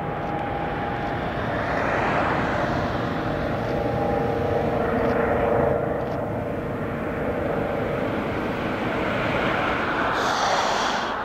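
Boeing 777-300ER's twin GE90 turbofan engines running as the airliner lands: a steady jet rumble with a held whine. It is loudest around touchdown about six seconds in and swells again near the end during the rollout.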